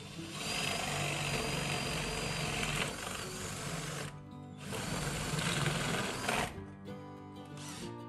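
Cordless drill boring into a wooden door to enlarge a hole for a door lock's handle and key, in two runs of a few seconds with a short pause between them about four seconds in, then stopping. Background music plays throughout.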